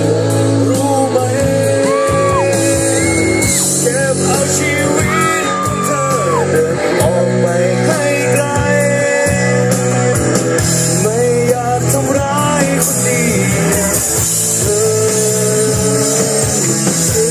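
Live rock band playing through a PA, with a singer's voice carrying the melody over bass, guitar and cymbals.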